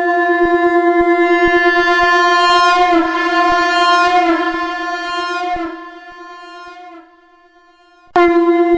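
Shankh (conch shell) blown as a steady drone on F, rich in overtones, growing brighter in the middle and then fading away about six to seven seconds in. After a brief near-quiet gap it starts again suddenly at full strength near the end.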